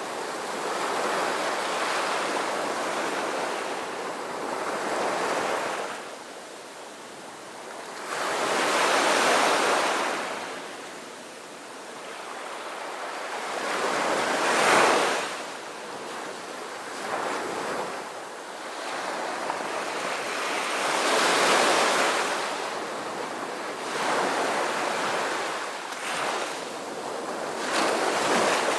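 Waves washing in and drawing back, a rushing surf noise that swells and fades about every six seconds.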